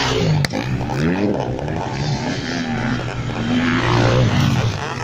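Motocross motorcycles racing past on a dirt track. The engines rev hard, and the pitch climbs and drops as the riders open and close the throttle.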